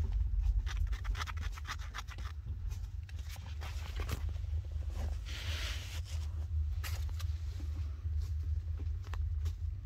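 Light scratching and rustling with small clicks over a steady low hum: a dense run of clicks in the first couple of seconds and a brief, louder rustle about five to six seconds in.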